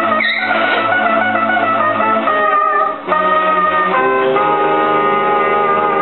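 Instrumental music: sustained chords that change about three seconds in and again about four seconds in.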